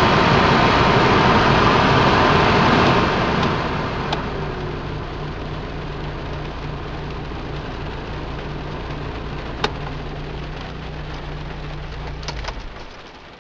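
Newly replaced cabin blower fan of a Ford Focus running on high, with the car's engine idling underneath as a steady low hum. About three seconds in, the fan noise drops. A few clicks follow, and near the end the engine hum cuts off.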